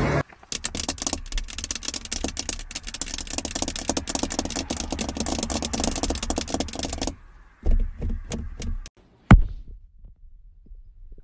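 A car's door handle and door lock clicking and rattling over and over in rapid succession, as the handle is pulled while the lock keeps going on and off. The clicking stops about seven seconds in, followed by a few separate clicks and one sharp click.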